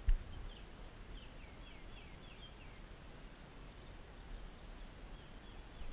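A bird calling in a quick series of short, falling chirps, from about half a second to three seconds in, over faint steady background noise. A low thump right at the start.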